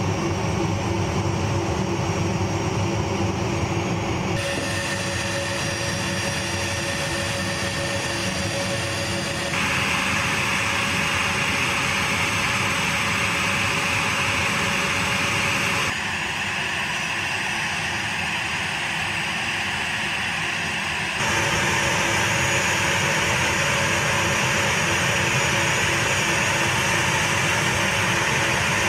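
Jet engines running on an aircraft flight line: a steady rush of noise with high whining tones. The pitch and level shift abruptly several times.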